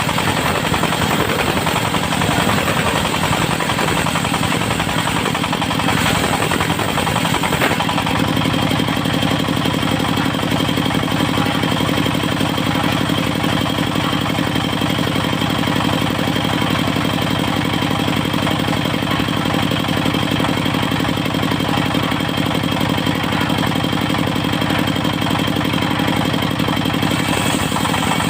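Engine-driven portable circular sawmill (serkel) running steadily; about eight seconds in, the low drone changes from uneven to a smoother, even running.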